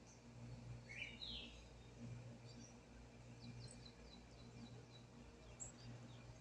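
Faint bird calls: a single rising chirp about a second in, then a quick run of short high chirps a few seconds later, over a steady low hum.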